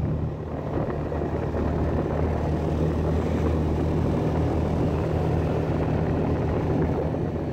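Snowmobile engine running steadily at cruising speed while riding, a constant low hum under the rushing noise of the track and travel.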